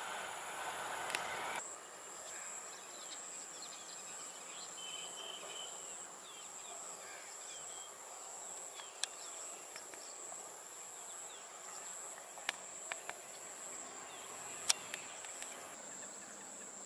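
Steady high-pitched drone of insects such as crickets in a rice field, with a few sharp clicks in the second half. A louder mechanical noise cuts off abruptly about a second and a half in.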